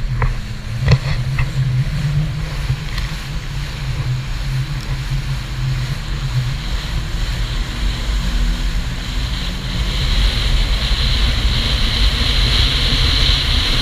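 Personal watercraft running at speed over choppy water: a steady low engine drone under the rush of spray and wind on the microphone. A few sharp knocks come about a second in, and the rush grows louder about ten seconds in.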